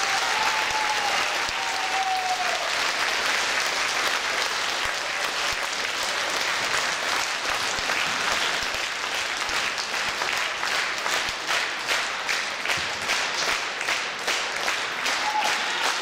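Audience applauding. In the second half the clapping becomes more even and rhythmic.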